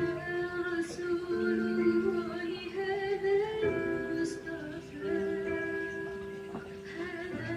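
Music with a sung melody of long held, wavering notes over a sustained accompaniment.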